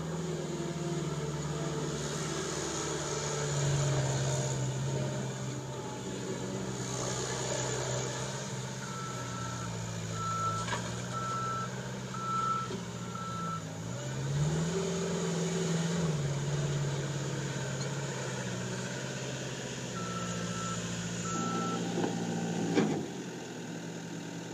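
Caterpillar 252B skid steer loader's diesel engine running with the revs rising and falling, its reverse alarm beeping about five times near the middle and twice more later. Near the end the engine cuts off.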